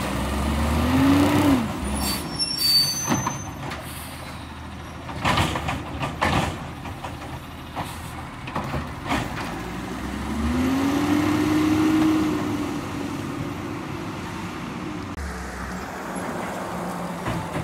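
Labrie Automizer automated side-loader garbage truck at work: its diesel engine revs up and settles twice over a steady idle, with several sharp clanks from the lifting arm and carts in between.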